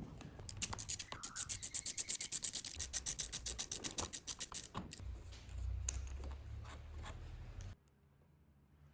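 Rapid run of sharp clicks, about nine a second, from hand-tool work on a scooter's throttle cable at the throttle end, followed by rubbing and handling noise. The sound drops away suddenly near the end.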